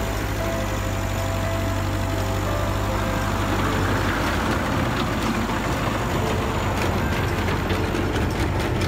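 1951 Ferguson tractor engine running steadily at idle, with a rushing noise swelling about four seconds in and a rapid mechanical rattle coming in near the end.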